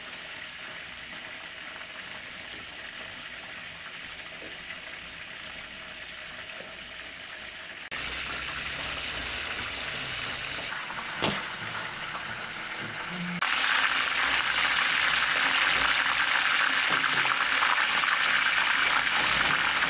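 Food frying in hot oil, sizzling steadily. The sizzle grows louder in two sudden steps, about eight seconds in and again two-thirds of the way through. There is a single sharp click around eleven seconds in.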